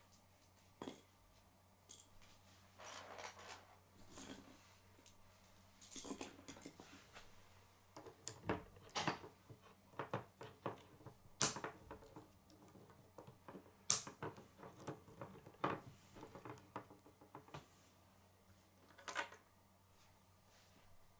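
K'nex plastic rods and connectors clicking and rattling as they are handled and snapped together, in an irregular scatter of small clicks. Two sharper snaps stand out, a little past halfway and again a couple of seconds later.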